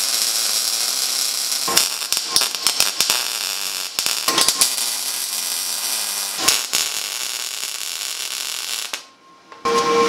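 MIG welder arc crackling and hissing as angle iron is welded to steel diamond plate, with a few brief breaks in the arc. The arc cuts off about nine seconds in.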